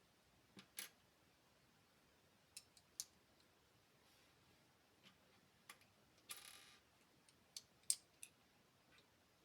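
LEGO pieces being handled and pressed together: scattered sharp plastic clicks and taps, with a brief rattle of pieces a little past the middle and the loudest click about two-thirds of the way through.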